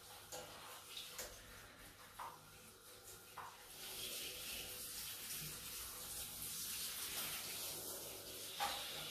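Water spraying from a handheld shower head onto a wet marmot's fur, a steady hiss that comes on louder about three and a half seconds in. A few short clicks come before it.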